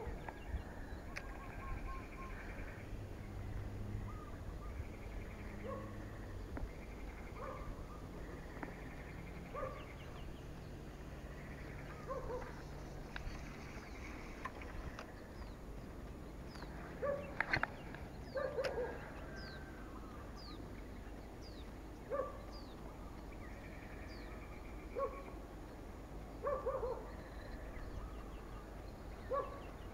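Outdoor animal calls: short pitched calls recurring every couple of seconds, some in quick pairs, with a run of high bird chirps in the middle, over a faint steady low hum.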